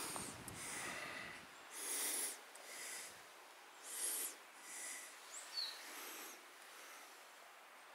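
A walker's heavy breathing, short hissy breaths coming roughly once a second and unevenly spaced, with a lull near the end. A single short high bird chirp sounds about halfway through.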